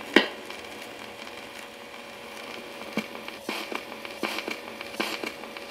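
Stylus of a Jensen JTA-230 record player's ceramic cartridge riding the run-out groove of a 1926 shellac 78 rpm record: steady surface hiss, with sharp clicks about twice a second from about three seconds in. The auto-stop fails to trigger on the 78's kick-back inner groove, so the record keeps turning under the needle.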